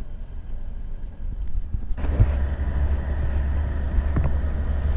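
Road and engine noise of a moving Toyota Troopy, a steady low rumble that steps up suddenly and stays louder from about two seconds in.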